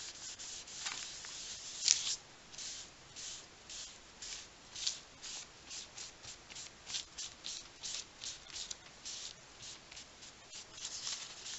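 A damp baby wipe rubbed back and forth over a thin Hobonichi journal page in quick, brushy strokes, about two to three a second, spreading green pencil pigment into a pale wash.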